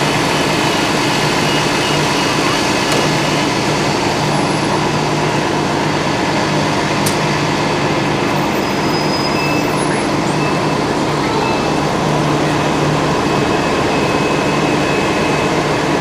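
A bus engine idling: a steady hum with even noise over it, unchanging throughout.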